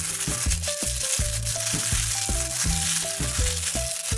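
Background music with a repeating bass line and short melody notes, over the crinkle of a plastic zip-top bag being handled as the air is pressed out of it.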